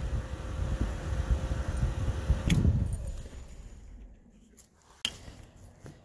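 Ignition key on its tag jangling in a newly installed ignition switch, over rumbling handling noise, with a sharp click about two and a half seconds in and another near the end.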